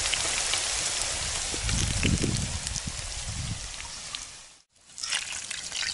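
Potatoes and onion sizzling as they fry in a hot steel sadj over a campfire: a dense, steady hiss, with some low clattering about two seconds in. The sizzle thins out and cuts off briefly about four and a half seconds in, then returns with crackles.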